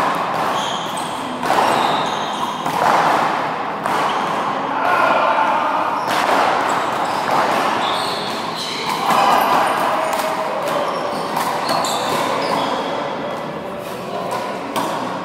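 One-wall handball rally on an indoor court: the rubber handball hits the wall and floor again and again, echoing in the large hall, with players' voices calling out between hits.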